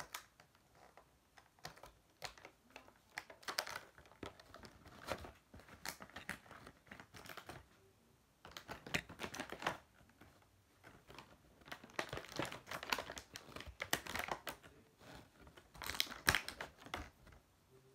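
Irregular small plastic clicks and rustling of Beyblade parts being handled and fitted together, in clusters with short pauses between.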